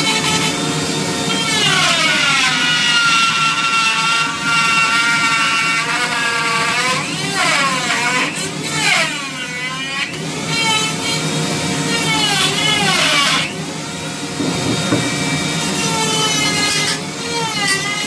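Dremel rotary tool with a carving bur grinding into wood, its motor whine dipping in pitch as the bit bites under load and rising again as it eases off, over and over.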